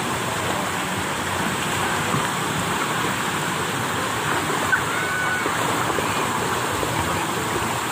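Steady rush of water from a water-park play structure's spouts and sprays falling into a pool, with splashing from children wading and swimming.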